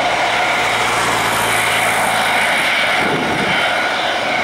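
Airbus A320-232's two IAE V2500 turbofan engines at low taxi power: a steady jet whine with several held tones over a rushing hiss.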